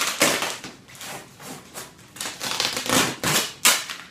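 Packing tape being ripped off a cardboard box and the cardboard flaps torn open: a series of short ripping and tearing sounds, about five in four seconds.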